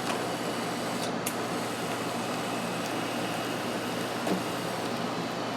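Small 12-volt electric damper actuator from a Saab 9000 air-conditioning box running on a bench power supply, a steady mechanical running sound with a few light clicks.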